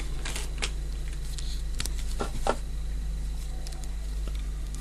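A few soft clicks and rubbing sounds as a coiled flat OBD connection cable is handled in the hands, over a steady low hum.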